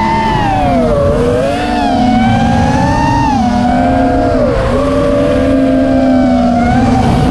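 Racing quadcopter's four brushless motors (Hyperlite 2206-2600, 4S) and props whining, the pitch rising and falling as the throttle changes during freestyle flying.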